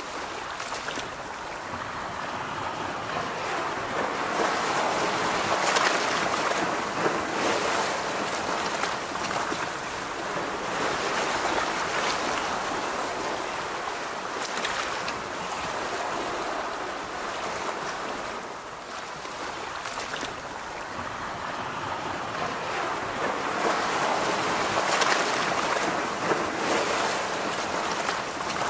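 Sea waves breaking and washing in, the rush of surf swelling and ebbing every few seconds.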